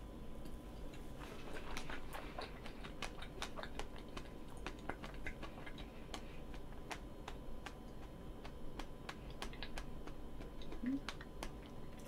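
Close-miked chewing of a mouthful of cream-filled roll cake: an irregular run of soft, wet mouth clicks, with a brief low hum near the end.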